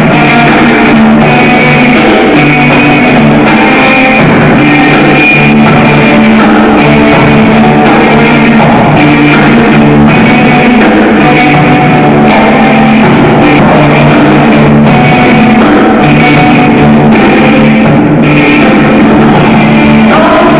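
Loud rock music with guitar and drums, playing steadily.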